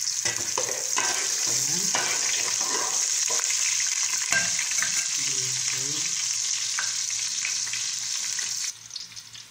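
Chopped garlic sizzling as it sautés in hot oil in an aluminium pot: a steady high frying hiss with a few short stirring knocks, cutting off suddenly near the end.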